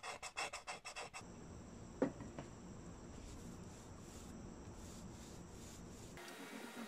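A fingernail scratching in rapid strokes across dried shellac-based primer for about a second, a scratch test of the primer's adhesion. After that only a faint steady hiss with a thin high whine and a single click, and music comes in near the end.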